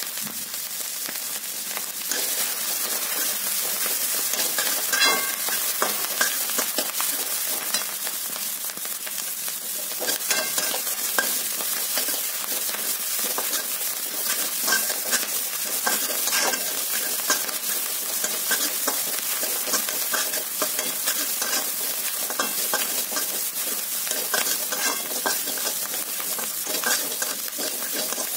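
Shredded cabbage and green peppers sizzling in hot oil in a kadhai, with a metal spatula stirring and scraping against the pan. The sizzle steps up a little about two seconds in.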